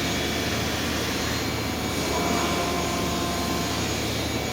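Studer S36 CNC cylindrical grinder running: a steady hiss and hum with several faint, steady high whines.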